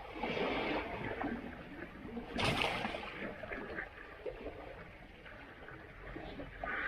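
Asian elephants wallowing in muddy river water: uneven sloshing and gurgling, with a sharp splash about two and a half seconds in.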